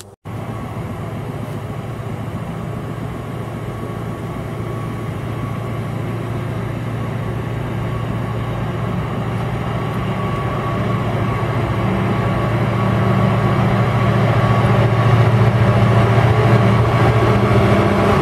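Class 59 diesel locomotive's General Motors EMD two-stroke V16 engine approaching, a low steady drone that grows gradually louder as it nears.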